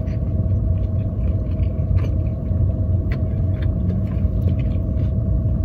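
Steady low rumble and faint hum of a parked car running, heard from inside the cabin, with a few faint clicks of chewing.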